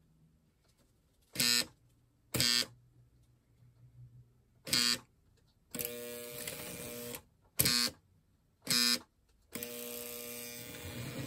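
Model train horn sounding a pattern of short and long blasts at one steady pitch: three short toots, a long blast of over a second, two more short toots, then a long blast of about two seconds.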